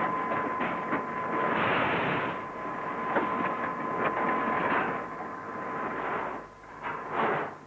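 Wet concrete being tipped from a skip into the tower's slipform mould, a rough rushing noise with a steady high whine through it. Near the end it breaks up into separate surges.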